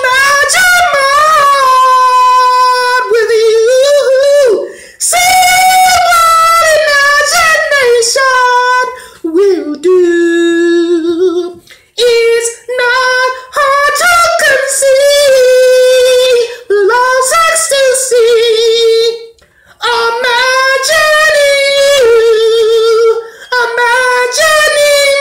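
A man singing unaccompanied in a high voice: long drawn-out notes that bend and waver in pitch, in phrases broken by short pauses for breath.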